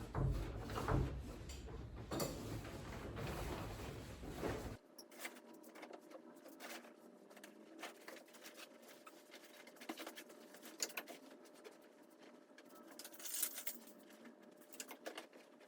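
Scattered light clicks, taps and rustling of small objects being handled in a small room. A low background rumble cuts off abruptly about five seconds in.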